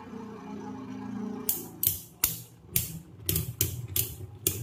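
Two Beyblade spinning tops, one of them Regalia Genesis, whirring in a plastic stadium; after about a second and a half they begin striking each other in a quick, irregular run of sharp clicks.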